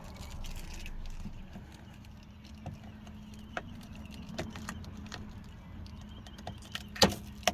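Scattered light clicks and rustling from handling the newly fitted inside door handle and door trim, with two sharper clicks near the end.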